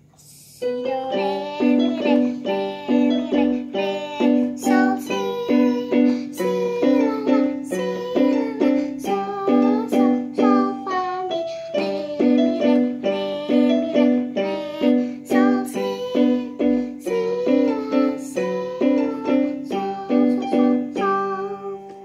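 Portable electronic keyboard played with both hands: a simple beginner piece with a repeating low left-hand chord under a right-hand melody. It starts about half a second in and stops at the end.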